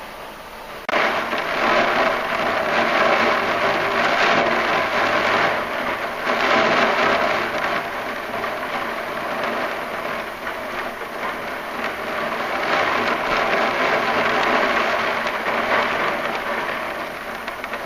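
Steady rain falling, coming in suddenly about a second in.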